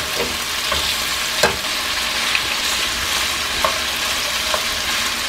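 Boneless chicken thigh pieces sizzling steadily in a nonstick frying pan, with a few light clicks of tongs against the pan as the pieces are turned, the sharpest about a second and a half in.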